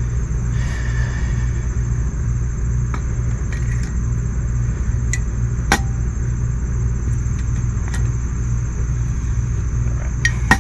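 A few sharp metal clicks as a brake caliper's parts are handled and fitted together, the loudest about halfway through, over a steady low rumble and hum.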